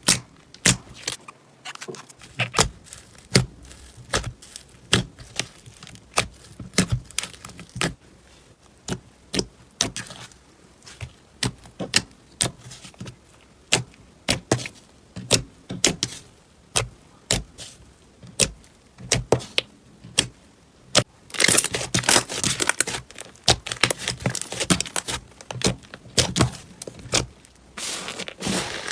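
Slime being squeezed and poked by hand, making a long series of sharp clicks and pops. A little over two-thirds of the way through, it turns to about six seconds of dense crinkly crackling, then goes back to separate clicks near the end.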